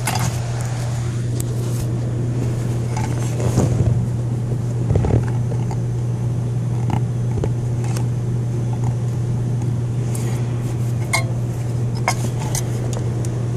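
A steady low hum runs throughout, under scattered short clicks and scrapes of hands working the plastic harness clip and wiring connectors of a car's under-seat amplifier.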